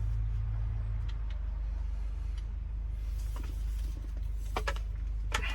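Mitsubishi Fuso Canter truck's engine running steadily at idle, a low even hum, with a few light clicks and taps of handling in the cab in the second half.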